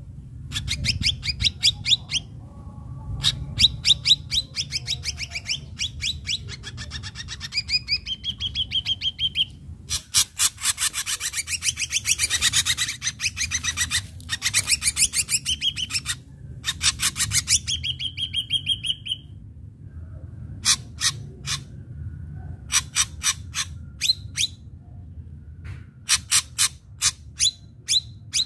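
Ashy drongo singing hard: rapid runs of sharp, clipped notes broken by drawn-out whistled phrases, with a dense, loud outpouring of song in the middle and brief pauses between phrases. A low background rumble runs underneath.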